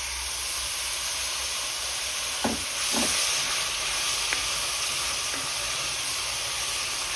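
Onion-and-spice paste frying in hot ghee in a saucepan: a steady sizzle that grows louder about three seconds in, with two soft knocks just before.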